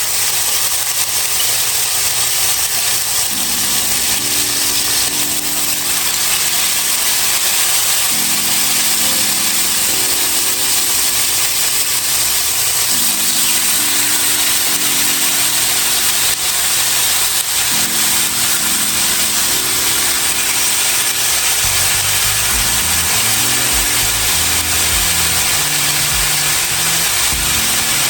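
Chicken pieces sizzling steadily in hot oil in a cast iron pot, searing to brown. A looping low melody repeats about every five seconds underneath, with a bass line coming in about two-thirds of the way through.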